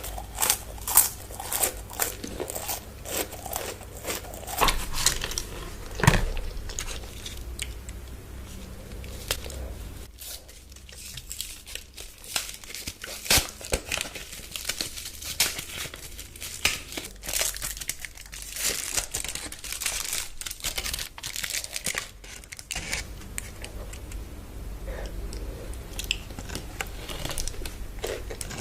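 Chocolate bar wrappers crinkling and tearing close to the microphone, with a few crunchy bites in the first few seconds. The crinkling thins out for a while in the middle, then picks up again and runs dense.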